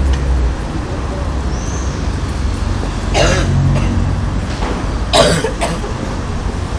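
Triumph Tiger parallel-twin engine on straight pipes idling with a steady low rumble that eases about half a second in. Two short harsh bursts stand out, about three and five seconds in.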